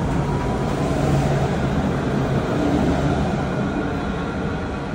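Dubai Tram running along its track: a steady rolling rumble with a faint high whine over it.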